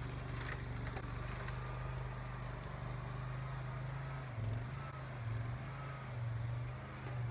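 Boxer 427 mini skid steer's engine running steadily, its note swelling and dipping a few times in the second half, with a faint high whine above it.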